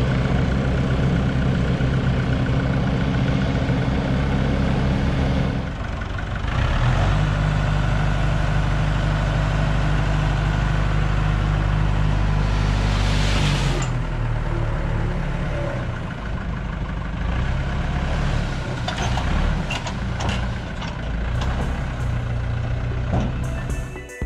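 Diesel engines running steadily: first the Komatsu PC16 mini excavator working, then, after a cut about six seconds in, the tractor running while its hydraulic tipping trailer is raised to dump a load of soil. A rising rush of noise builds over the tractor and stops abruptly about 14 seconds in, after which the engine runs more quietly.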